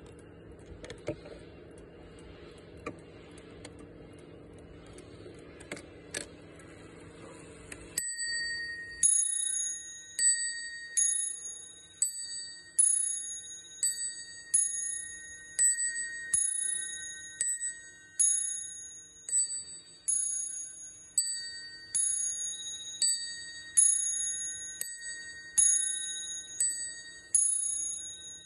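Table clock's Wuba movement striking in bim-bam style: two hammers alternately hit two brass bell cups, giving a high then low ding-dong about once a second, each strike ringing on. A few faint clicks come before the striking begins, about eight seconds in.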